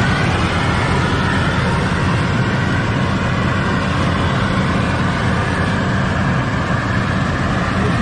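Combine harvester running steadily while cutting rice paddy: a continuous engine and machinery drone that eases slightly in loudness as the machine moves away.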